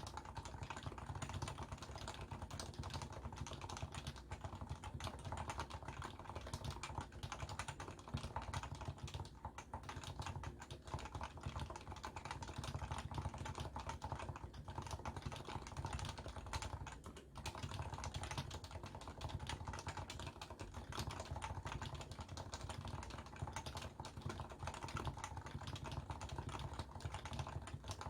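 Continuous typing on a Leopold FC660C keyboard with stock, non-silenced 45g Topre electro-capacitive switches: a steady, dense stream of keystrokes without pauses. Recorded through a Samsung Galaxy S10+ phone microphone.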